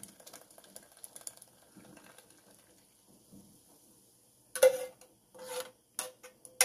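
A metal ladle scrapes and knocks against a saucepan, scooping thick red chile sauce out of it. A loud ringing clank comes about four and a half seconds in, followed by a second scrape and a few short taps.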